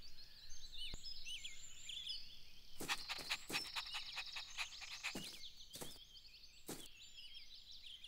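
Faint cartoon garden ambience of chirping birdsong, with several short breathy sounds from an animated puppy, such as panting.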